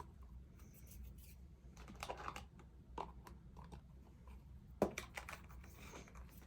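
Faint scattered clicks, taps and rustles of thin plastic cutting-mat pieces being handled, with one sharper click about five seconds in.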